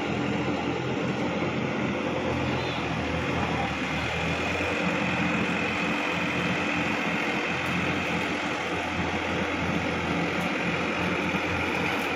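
Sonalika DI-50 RX tractor's diesel engine running steadily as the tractor drives through a flooded paddy field.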